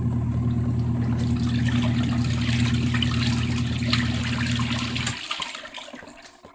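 Portable washing machine running: a steady motor hum with water sloshing and splashing in the tub. The motor stops about five seconds in, and the sloshing dies away.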